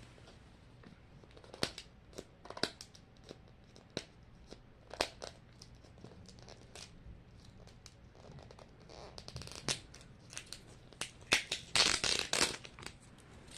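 Plastic wrapping on a Mini Brands capsule being worked off by hand: scattered crackles and clicks, with a denser run of crinkling and tearing near the end.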